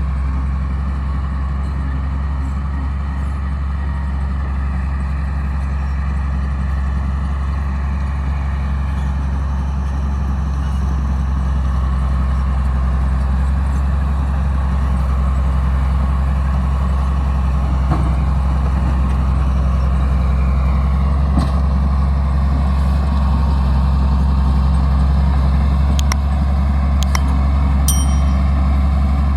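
Crawler bulldozer's diesel engine running steadily under work, with a deep hum that slowly builds a little in level. A few short sharp clicks or clanks near the end.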